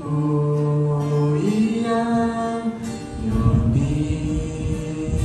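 Small mixed youth choir singing a slow worship song into microphones, holding long notes, with an acoustic guitar accompanying.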